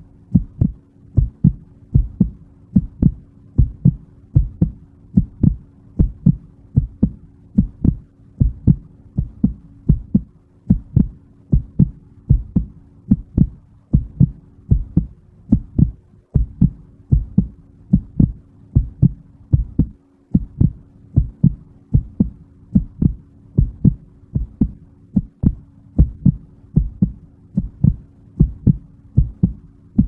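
Heartbeat audio: a steady double thump (lub-dub) repeating at an even pace a little faster than once a second, with a faint steady hum underneath.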